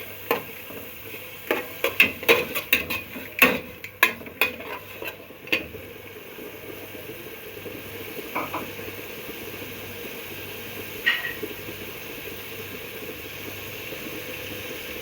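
A spoon stirring and scraping in a pot, knocking against it many times in the first six seconds and twice more later. Under it runs a steady sizzle of onions and tomatoes frying in oil.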